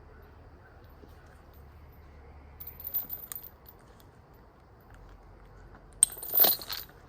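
Two short bouts of metallic jangling and clinking over a faint background, a brief one about three seconds in and a louder one about six seconds in.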